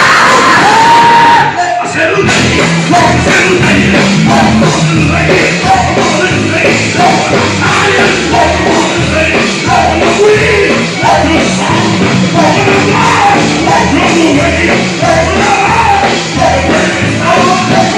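Loud live gospel music: voices singing and shouting over a band with a steady beat.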